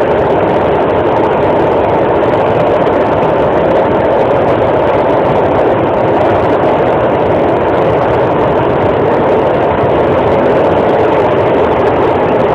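Steady running noise of an Alstom Metropolis C751A metro train, heard inside the passenger car: an even, loud din with no clear changes, as the train travels between stations.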